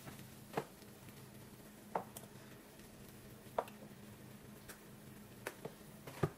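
Sporadic light clicks and taps, about seven at uneven intervals, over a faint steady hum.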